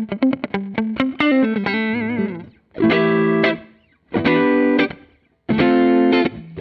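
Fernandes electric guitar played through a Hotone Ampero One amp modeler with an overdriven tone. It opens with a run of quick picked notes and a phrase with bends and vibrato, then three held chords, each cut off into a short silence.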